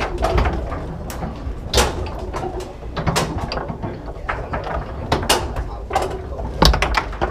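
Foosball table in play: irregular sharp knocks and clacks of the ball striking the plastic men and walls and of the steel rods being slid and spun.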